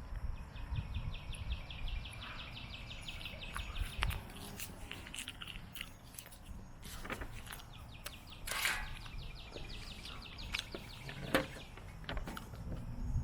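Outdoor ambience: an insect chirping in a fast, even pulse of about ten chirps a second, in two long runs, with bird chirps, a low rumble and a few short sharp clicks, the loudest near the end.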